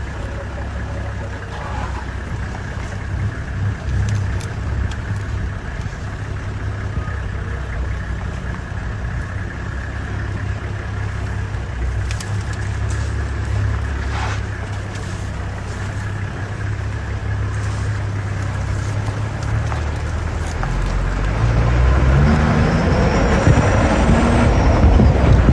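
A motor vehicle's engine running with a steady low rumble. Near the end it revs up and grows louder, its pitch rising in steps as it pulls away.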